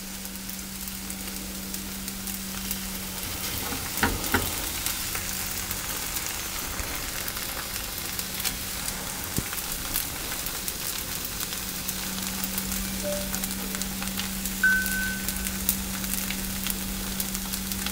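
Thin pancake batter sizzling and crackling steadily in a hot non-stick frying pan as it cooks on its second side, with a brief knock about four seconds in.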